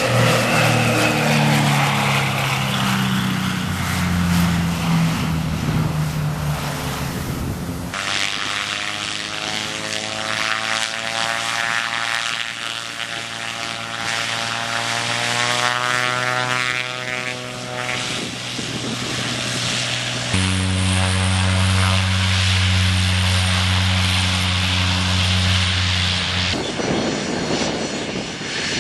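Propeller airplane engines in a run of short clips, with a hard change of sound at each cut. First a twin-engine piston plane flies past, its engine pitch falling as it goes by. Then propeller engines run with the pitch rising and falling, then holding steady, and in the last two seconds a business jet taxis with a high whine.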